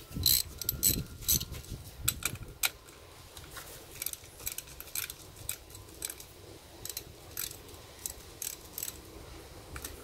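Ratchet wrench with a 10 mm socket clicking in short irregular runs as it loosens the negative battery terminal nut, with a few sharper metal clicks in the first second.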